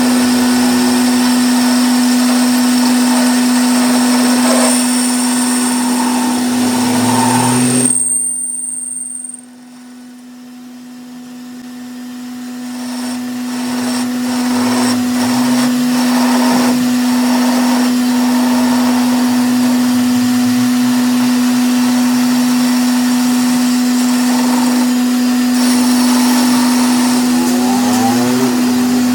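Metal lathe running with a steady motor hum and machining noise. About eight seconds in the noise drops away suddenly, then builds back up over a few seconds and runs steadily again.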